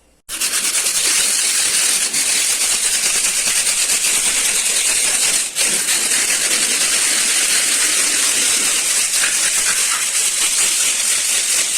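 Medium-grit iron sandpaper being rubbed rapidly by hand over a refrigerator's metal cabinet: a loud, steady rasping hiss of quick strokes, with a brief break about five and a half seconds in. The metal is being smoothed ahead of a vinyl wrap.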